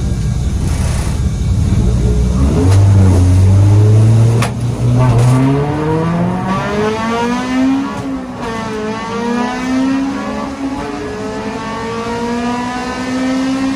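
Car engine accelerating hard through the gears: its pitch climbs, drops back at each upshift about four and a half and eight seconds in, then climbs again more slowly.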